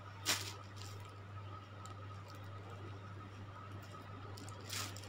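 Steady low electrical hum with two brief scuffing handling noises, the louder one just after the start and a softer one near the end.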